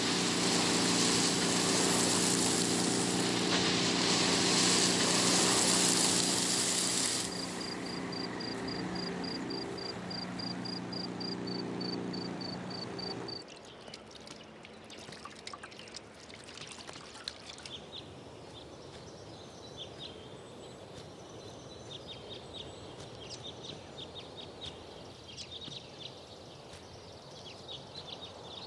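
A car engine running under a loud rush of noise as the car drives, easing after about seven seconds and cutting off suddenly about halfway through. After the cut, water trickles and splashes at outdoor washstands, with scattered small clicks.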